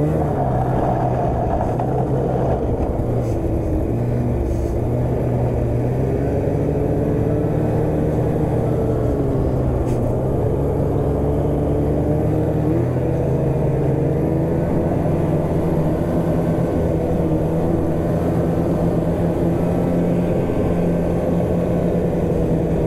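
Polaris Switchback snowmobile riding along a trail at a steady cruising speed, its engine running continuously with an engine note that drifts slightly up and down.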